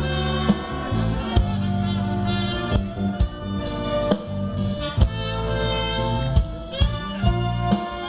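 An orchestra playing live: held notes and chords, punctuated by sharp percussive hits every second or so.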